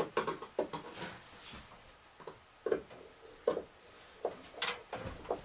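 About ten light, irregular knocks and taps of a solar motion-sensor light being held and shifted against the shed's wooden ceiling framing.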